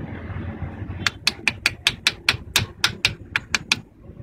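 About a dozen quick, sharp metallic taps, four or five a second, starting about a second in and stopping shortly before the end, as pistons are fitted into the bores of a Cummins 6CT inline-six diesel engine block.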